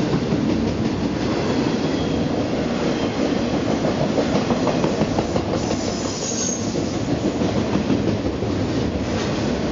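Double-stack container freight train running past, its wagons' steel wheels rolling on the rails with a steady rattle and repeated clickety-clack over the rail joints, and a brief high squeal about six seconds in.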